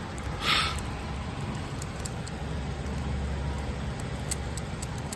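Cat eating from a stainless steel bowl, with faint scattered clicks, over a steady low rumble. A short hiss comes about half a second in.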